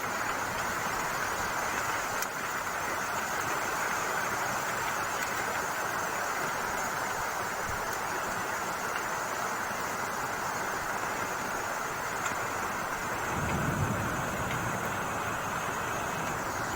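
Heavy rain making a steady hiss, with a low rumble swelling for about two seconds near the end.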